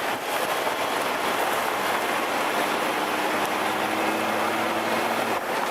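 Mercedes-Benz Actros tractor truck driving at speed: a steady rush of wind and road noise, with a low engine hum coming through from about halfway in.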